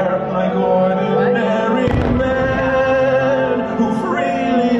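Fireworks show soundtrack: orchestral music with a singing voice. A single firework bursts with a low boom just before two seconds in.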